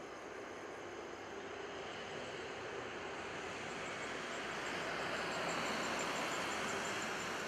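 Distant jet engine noise from a Garuda Indonesia Airbus A330 airliner rolling along the runway: a steady rushing rumble that grows gradually louder.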